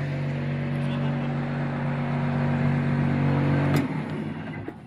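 Komatsu PC220-7 excavator's six-cylinder diesel engine running steadily, then shutting off with a click nearly four seconds in.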